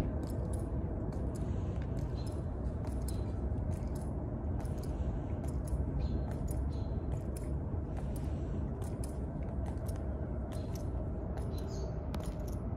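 Marching footsteps of two Tomb Guards on stone pavement, their metal-tapped shoes clicking sharply about twice a second, over a steady low background rumble.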